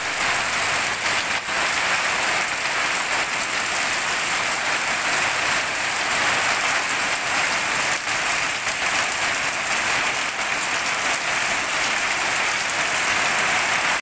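Heavy tropical rain falling steadily on a wet concrete yard, with runoff streaming down from the roof edge and splashing: a dense, even hiss.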